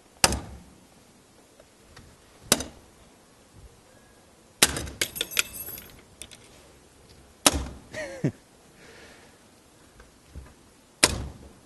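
Hammer blows striking an ABUS Granite X Plus hardened-steel D-lock, five heavy hits a few seconds apart. The third hit is followed by a quick rattle of smaller knocks.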